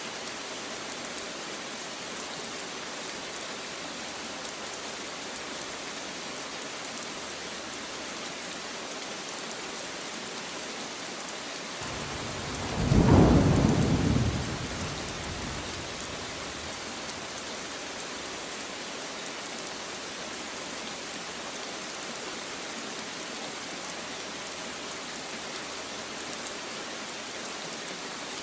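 Steady rain falling, with a single thunderclap about halfway through that swells quickly, rumbles low and dies away over a few seconds.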